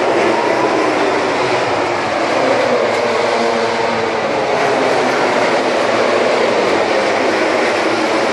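Many MotoGP racing motorcycles' engines running together on the starting grid: a loud, dense wall of engine noise with several overlapping pitches, some rising and falling as riders rev.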